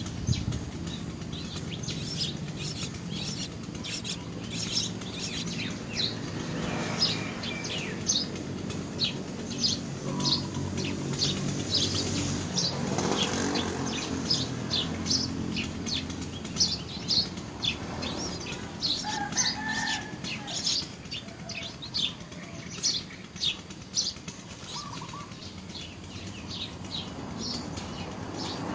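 Small birds chirping: a steady stream of quick, high chirps, several a second, with a few lower calls now and then, over a steady low hum.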